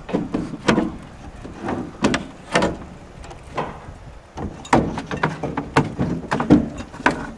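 A series of irregular knocks and clunks, about two a second and uneven in strength, over a low background rumble.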